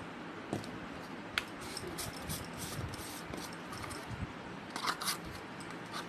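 Soft scraping and a few light clicks of kitchen utensils against a steel mixing bowl as ingredients are added and mixed: one sharp click about one and a half seconds in and a short run of clicks near the end.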